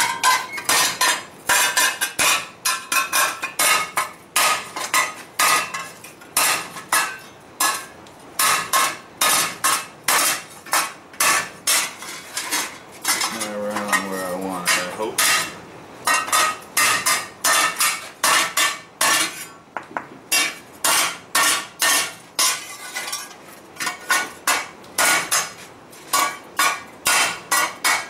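Hand hammer striking a hot steel pan blank over a steel cylinder on the anvil. The blows come in quick runs of about three a second with short pauses between, as the pan bottom is flattened.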